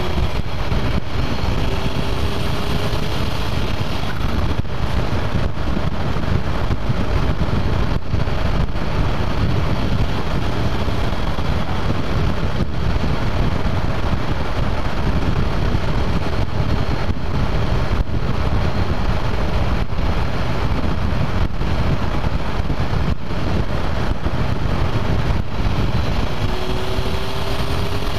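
Turbocharged car driven at road speed, its engine and exhaust running steadily under a dense rush of wind and road noise on a hood-mounted microphone.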